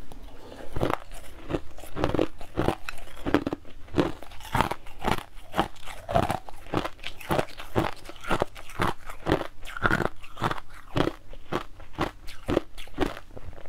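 A person chewing a mouthful of crushed ice: a steady run of sharp crunches, two or three a second.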